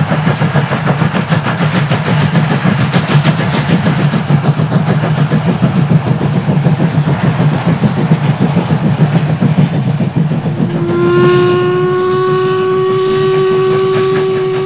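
Steam locomotive running with a fast, even chuffing rhythm over a low rumble. About eleven seconds in, its steam whistle starts: one long, steady blast.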